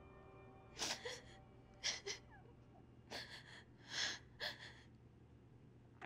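A woman crying: a series of short, shaky, gasping breaths, about seven in all. They come over soft background music with held notes that fade in the first second.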